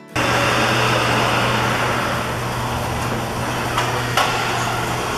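Electric overhead sectional shop door closing on its opener: a loud, steady motor hum under a noisy clatter, with two clanks about four seconds in.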